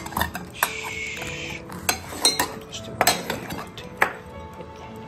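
Dry cat kibble poured into stainless steel feeding dishes, a rattling pour lasting about a second, followed by several sharp clinks and knocks of the metal dishes. Background music plays underneath.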